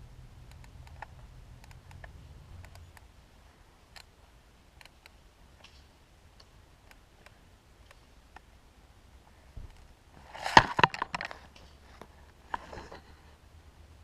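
Scattered faint ticks, then a brief cluster of sharp clicks and knocks about ten and a half seconds in, and a short rustle near the end.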